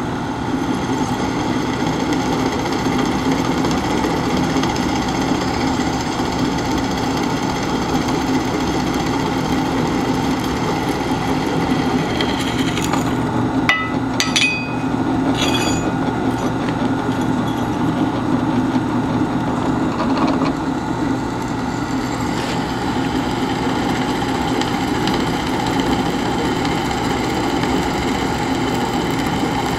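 Drill press running steadily, its twist bit drilling through a small steel armor plate, with a few brief high squeaks about halfway through.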